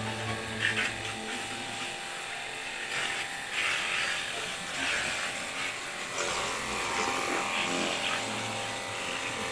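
Small pump motor of a cordless power-spray gun buzzing steadily while it sprays water.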